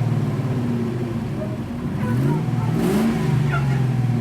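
Land Rover Defender 90 engine idling, then revved once about two seconds in, rising and falling back to idle.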